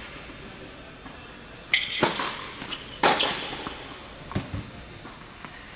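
Tennis ball being struck by rackets and bouncing on an indoor hard court: sharp pops echoing in a large hall, two close together about two seconds in, a loud one about three seconds in, and a duller thud a little after four seconds.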